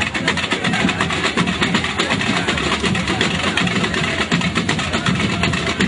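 Carnival parade street band playing: fast, dense drumming and percussion mixed with crowd noise, continuous and loud.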